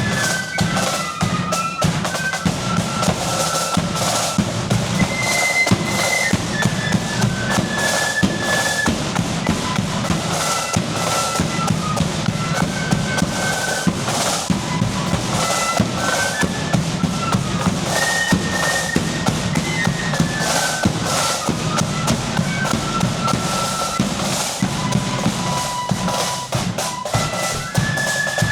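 Marching flute band playing a tune, the flutes carrying a stepping melody in unison over constant snare drum rolls and a pounding bass drum.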